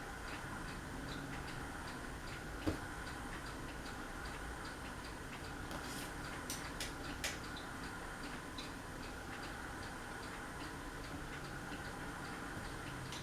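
Craftmade Phoenix ceiling fan coasting down after being switched off, wobbling badly and ticking lightly and regularly, about three ticks a second, with a few louder clicks.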